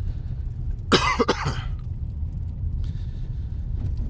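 A person coughs once, about a second in: a short, harsh burst of a few quick pulses. It sits over the steady low rumble of a car driving.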